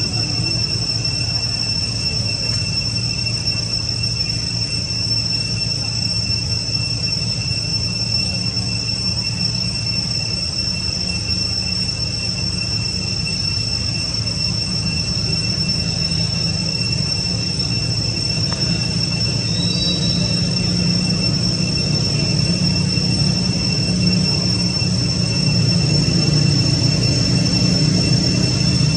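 A steady, high-pitched drone of forest insects, holding two unbroken tones, over a low rumble that grows a little louder near the end.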